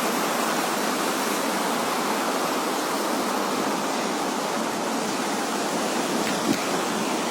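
Seawater floodwater rushing, a steady, even hiss with no break.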